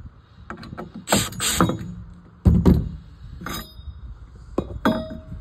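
Cordless drill/driver backing a screw out of a copper pipe strap in short whirring bursts, then a heavy thump and a few ringing metallic clinks as the soldered copper pipe is taken off the wooden board.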